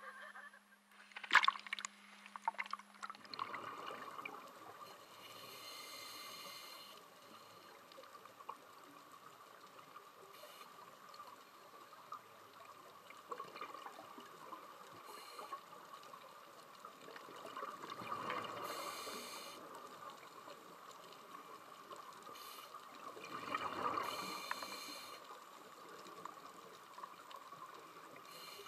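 Underwater recording of scuba regulator breathing: a hissing inhale every few seconds and bubbling exhales, over a steady hum. A single loud click comes about a second in.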